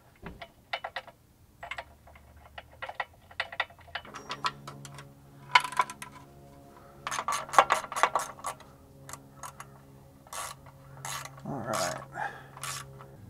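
Hand ratchet clicking in quick runs with metal clinks as mount bolts are run in from under the truck. A steady low hum comes in about four seconds in.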